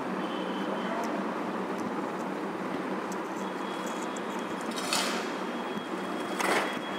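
Steady background noise with a faint low hum, and two short soft handling rustles, about five and six and a half seconds in, as a 10x microscope objective lens is taken apart with tweezers.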